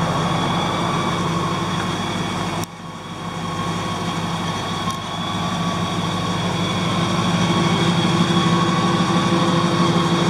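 2001 Ford Lightning's supercharged 5.4-litre V8 idling steadily through an aftermarket stainless exhaust, with a sudden brief drop in level a couple of seconds in.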